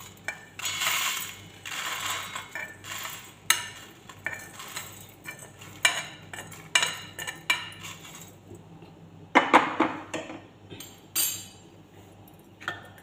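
Roasted whole spices rattling and sliding out of a frying pan into a steel mixer-grinder jar, the pan's edge tapping and scraping on the jar's rim in a run of clicks and knocks, with a louder scrape about nine and a half seconds in.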